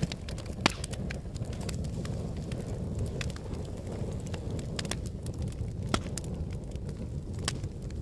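Wood fire burning in a fireplace, crackling: a steady low rumble of flames with frequent sharp snaps and pops, two of them louder than the rest, one just under a second in and one near six seconds.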